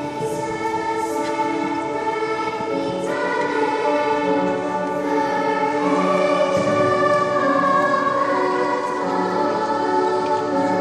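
Children's choir singing in unison, holding long notes that change together every second or two and grow louder toward the middle.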